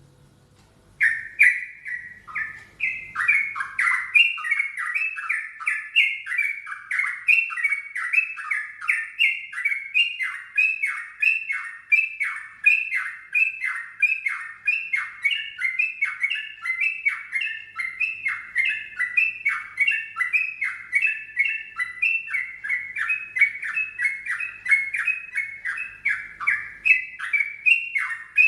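Yellow-vented bulbul (trucukan) singing a rapid, unbroken run of short falling notes, starting about a second in; its voice is called strange.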